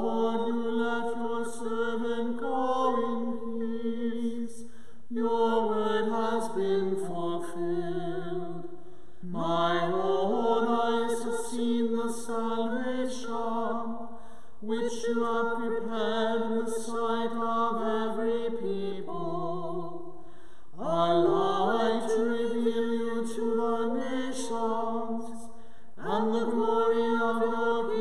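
Unaccompanied sung chant from clergy voices, in phrases of about five seconds with short breaths between them.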